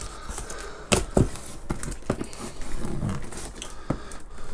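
Cardboard delivery box being opened by hand: flaps and packing crinkling and rustling, with two sharp knocks about a second in.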